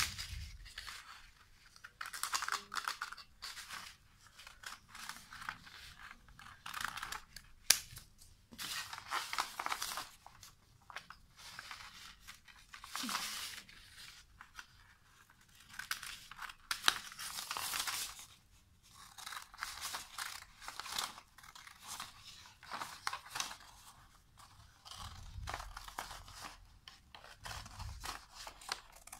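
Scissors cutting through a large sheet of pattern paper: runs of crisp snips with short pauses between them, and a few sharp clicks of the blades.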